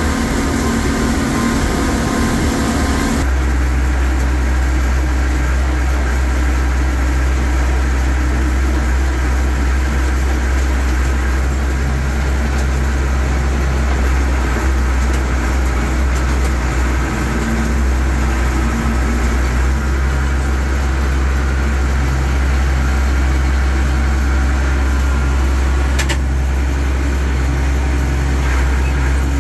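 Allis-Chalmers 190XT Series III tractor's turbocharged six-cylinder diesel engine running steadily, heard from inside the cab as a loud, even low drone. A single sharp click near the end.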